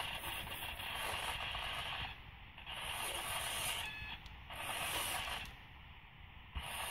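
Small servos of an FPV camera pan/tilt gimbal, including a Henge 260-degree digital pan servo, whirring in short bursts of a second or two with brief pauses between, as the camera swings from side to side.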